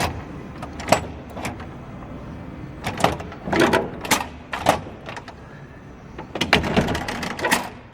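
Kawneer push-bar door latch being worked by hand: a series of metal clicks and clacks as the bar is pressed and released and the latch rods move, with a quick run of clacks near the end. The lower latch is not dropping where it belongs.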